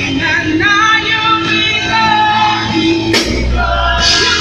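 A woman singing a praise song into a handheld microphone, amplified over a PA system with live band accompaniment. A sharp hit and a deep bass note come in about three seconds in.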